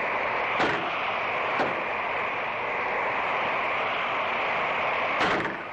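Wind blowing steadily with a loose wooden window shutter banging against its frame three times, the last knock near the end.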